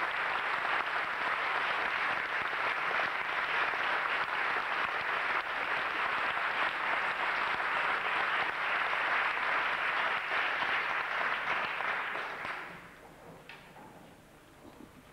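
Concert-hall audience applauding, a dense steady clapping that dies away quickly about twelve seconds in, leaving a few faint knocks and rustles.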